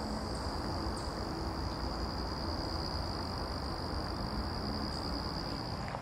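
Insects trilling in one high, unbroken, steady pitch over a low rumble of outdoor background noise; the trill cuts off suddenly near the end.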